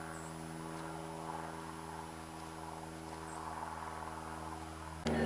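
Steady electric hum made of several even tones from an approaching Amtrak Pennsylvanian electric train. About five seconds in, the train's sound suddenly becomes much louder as it arrives.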